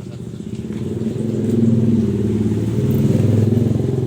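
Car engine running, heard at the tailpipe through the stock exhaust without the turbo whistle fitted, growing louder about a second in and then holding steady with a pulsing exhaust note.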